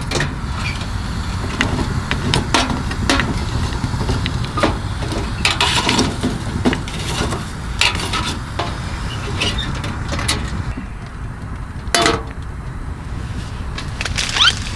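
Scattered wooden knocks and metallic clinks over a steady low rumble, from firewood and a folding wood stove being handled while the fire is coaxed going.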